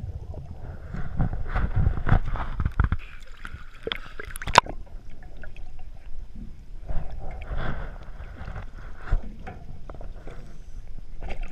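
Water sloshing and gurgling, with scattered bumps and knocks and one sharp knock about four and a half seconds in.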